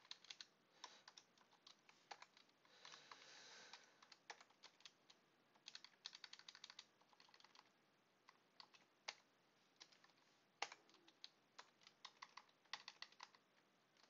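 Faint typing on a computer keyboard: irregular bursts of key clicks with short pauses between them.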